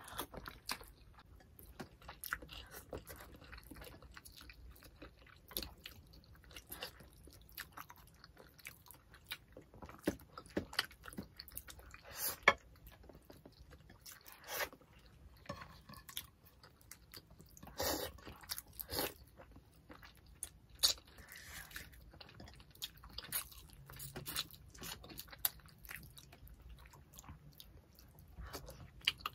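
Two people eating tilapia stewed in coconut milk with rice by hand, close to the microphone: wet chewing and lip smacking, with a steady run of irregular sharp clicks and a few louder smacks.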